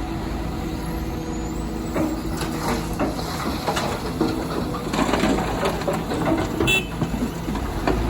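Excavator working rock: its diesel engine running steadily, with rock and earth clattering and crunching from about two seconds in.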